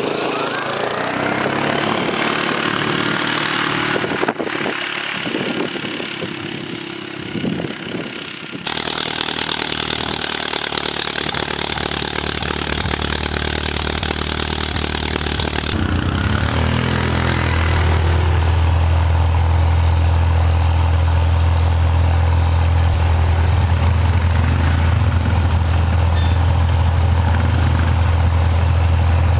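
Small vehicle engines running across several short cuts, from an ATV pushing snow with a plow blade and an old tractor with a front blade. In the last part a steady, low engine drone holds as the loudest sound.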